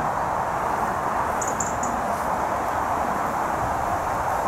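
Steady rushing outdoor noise, with a small bird giving three quick high chirps about a second and a half in.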